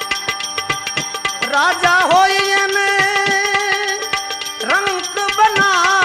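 Live Gujarati bhajan music: tabla strokes under a steady accompaniment, with a held melody line that bends and wavers, entering about one and a half seconds in and again near the end.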